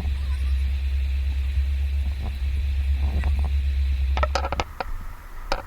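Steady low rumble of a car driving, heard inside the cabin, cutting off about four and a half seconds in, followed by a few light clicks and knocks.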